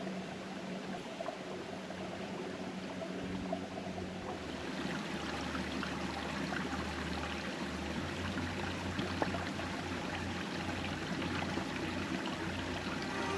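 Water running and trickling over stones, a steady stream sound, with a faint low hum coming in about three and a half seconds in.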